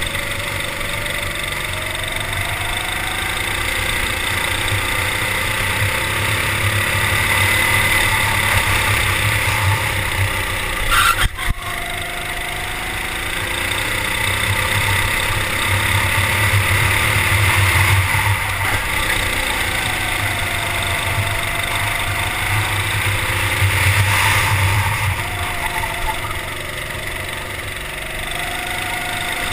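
Racing kart engine heard on board while lapping a track, its pitch rising and falling as the kart speeds up along straights and slows for corners. A short sharp knock about eleven seconds in.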